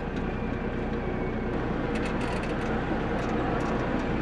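Diesel dump truck engine running steadily under way, a constant low drone with a few faint clicks about halfway through.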